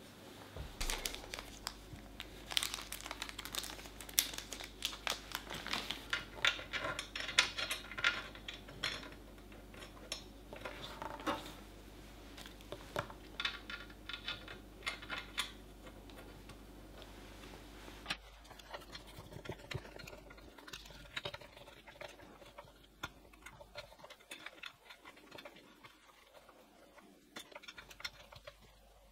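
Hand assembly of a 3D printer: rustling, crinkling handling noise with many small clicks and taps of metal parts and screws, busy for about the first two-thirds, then changing suddenly to quieter, scattered clicks.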